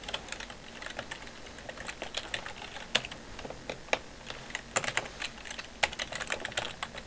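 Typing on a computer keyboard: a run of irregular keystrokes, a few of them louder than the rest.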